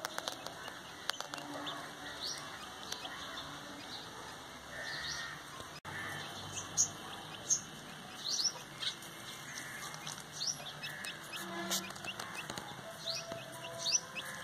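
A chick cheeping in short, high chirps, scattered and coming more often from about six seconds in, over faint rustling.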